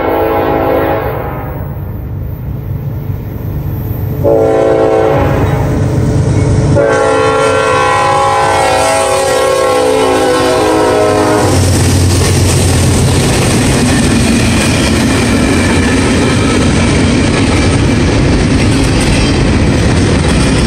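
Norfolk Southern freight locomotive's tuned multi-note air horn blowing in long blasts. One blast ends about a second in, and another starts about four seconds in and is held until about eleven seconds. Then the intermodal train passes close by: locomotive rumble and wheels clattering over the rail joints.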